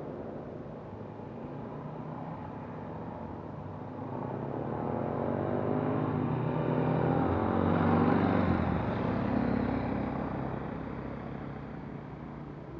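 Two motorcycles riding past on the road. Their engine sound builds over several seconds and is loudest about eight seconds in, where the pitch drops as they go by, then fades away.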